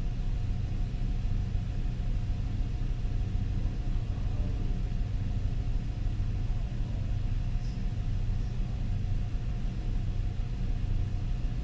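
Steady low hum of running CNC machinery, with a faint steady whine above it.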